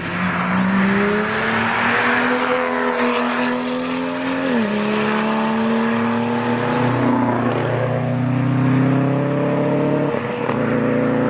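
Tuned BMW M2's turbocharged straight-six, breathing through a titanium Akrapovic exhaust, accelerating hard past, its note climbing, dropping sharply at an upshift about four and a half seconds in, then climbing again. About ten seconds in the note breaks as a second car's engine comes in.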